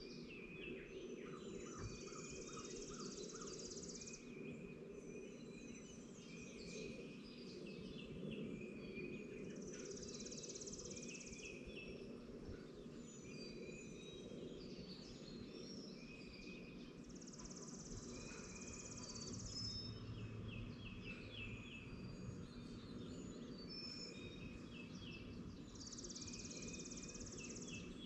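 Morning birdsong from several wild songbirds: many short chirps and phrases overlapping, with a high buzzing trill of about two seconds that recurs roughly every eight seconds, over a steady low background noise.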